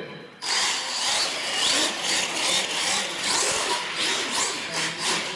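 Radio-controlled monster truck driving on a concrete floor: the motor and gears whine, rising and falling in pitch with the throttle, over tyre scrub. It starts suddenly about half a second in.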